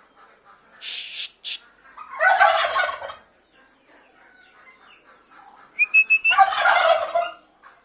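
Domestic turkey tom gobbling twice, a loud rattling call about two seconds in and another about six seconds in. A short high whistle comes just before the second gobble, and a brief high hiss about a second in.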